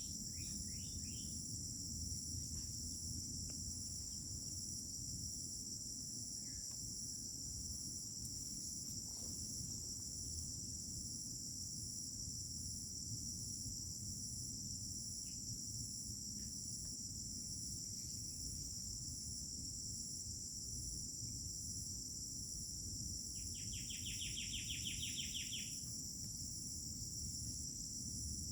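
Continuous chorus of crickets, a steady high-pitched drone. A few short bird chirps come about a second in, and a rapid trill lasting about two seconds near the end, over a low rumble.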